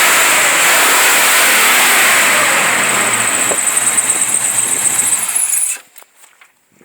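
1989 Chevrolet Cheyenne pickup's engine running loudly, then the sound stops suddenly near the end, leaving only a few faint clicks.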